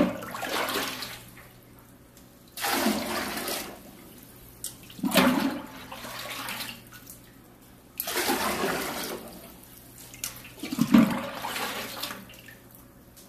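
Liquid poured into a large stockpot in scoopfuls, five splashing pours about two and a half seconds apart: concentrated stock being diluted with purified water.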